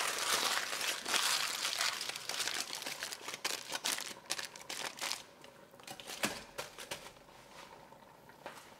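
Aluminium foil crinkling as it is folded and crimped over the rim of a small metal pan. The crinkling thins out over the second half to a few light taps.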